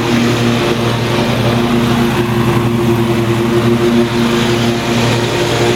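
Riding mower's 26 hp Briggs & Stratton engine running at a steady speed while mowing tall grass, the cutting deck engaged; the engine holds its speed under the load and does not bog down.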